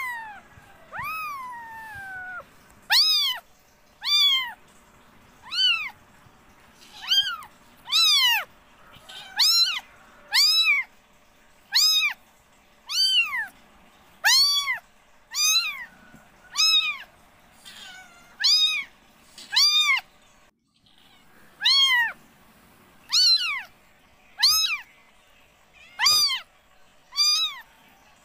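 Nursing kittens mewing over and over: short high-pitched mews that each rise and fall, about one a second, with one long falling mew near the start.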